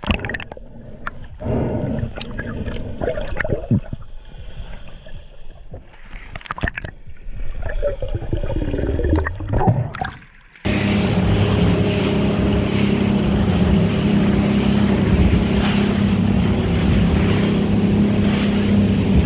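Underwater clicks and bubbling as a spearfisher swims near the surface. About ten seconds in, this cuts to a boat running at speed over open sea: a steady outboard engine drone with water and wind noise.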